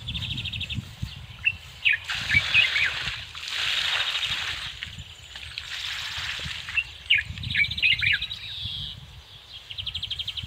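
Small birds singing: sharp repeated chirps and fast buzzy trills, over a steady low rumble.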